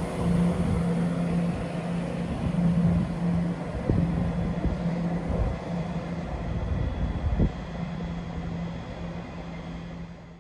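ScotRail Class 170 Turbostar diesel multiple unit pulling away, its diesel engines running under power with a steady drone that fades as it draws off. Two knocks midway.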